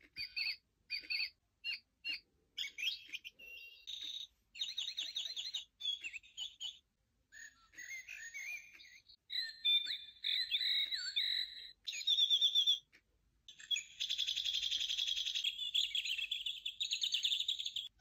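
Recorded birdsong from an Easymaxx bird-song wall clock's speaker: short clips of different birds' songs, trills and warbles, one after another, each starting and stopping abruptly, the later ones longer and louder.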